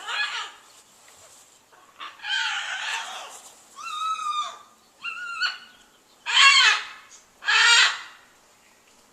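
Large pet bird crying over and over: six loud calls with quiet gaps between them, the second drawn out for about a second and the last two the loudest.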